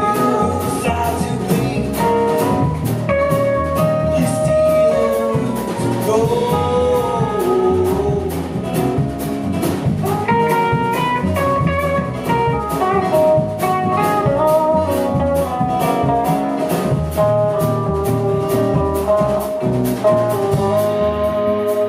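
Live band playing an instrumental passage with no singing: strummed acoustic guitar, upright bass and a drum kit keeping a steady beat under an electric guitar lead with bent notes.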